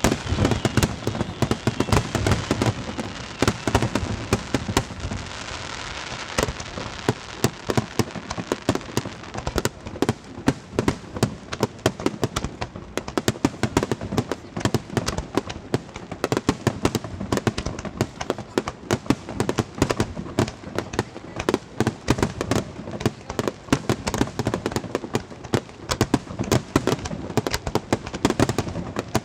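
Aerial fireworks display: a dense, continuous barrage of shell bursts and crackling bangs, many per second.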